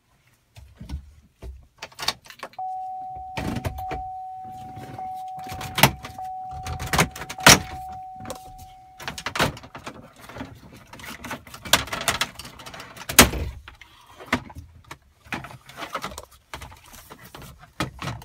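Plastic dash trim bezel of a 2007–2013 Chevrolet/GMC full-size truck being pried and pulled off by hand: a string of sharp clicks, snaps and knocks as its retaining clips let go and the panel rattles against the dash. A steady tone holds for about six seconds in the first half.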